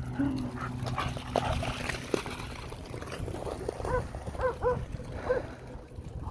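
A dog whining and yipping: a run of about five short, high calls in the second half.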